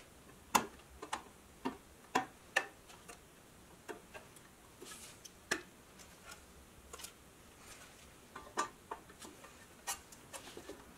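Irregular light clicks and taps of small metal parts being handled and set down on a workbench during work on a pressed-steel toy truck, about twenty in all, uneven in spacing and loudness.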